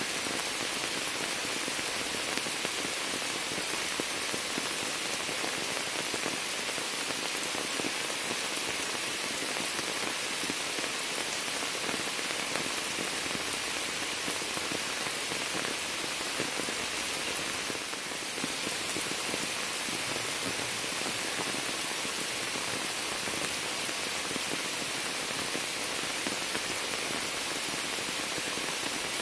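Steady rain falling into standing water on flooded pavement and onto the leaves of a shrub, a dense, even hiss.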